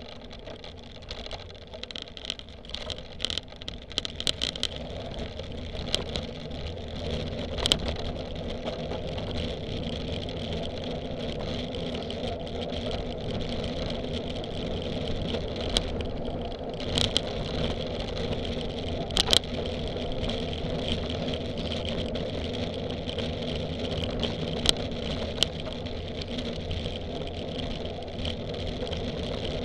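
Cyclocross bike ridden at race pace, heard from a camera mounted on the bike: steady rush of wind and tyre noise, growing louder over the first few seconds. Sharp knocks and rattles from the bike come over bumps, thickest in the first eight seconds.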